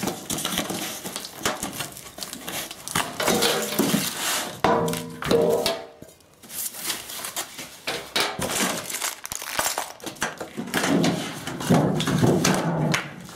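Thin foam packing sheets rustling and crinkling as they are pulled off sheet-steel drawer fronts, with clicks and knocks from the metal panels being handled. A brief ringing tone comes about five seconds in.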